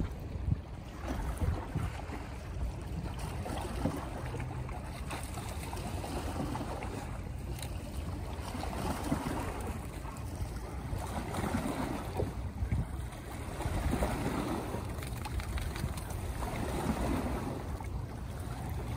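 Small waves washing and lapping against a rocky, seaweed-covered shoreline, the wash rising and falling every few seconds, with wind rumbling on the microphone.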